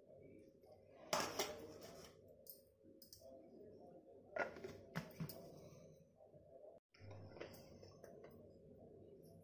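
Faint clinks and knocks of steel kitchenware being handled, a mixer-grinder jar and its lid, with the loudest knocks about a second in and a few more midway, over a faint steady hum.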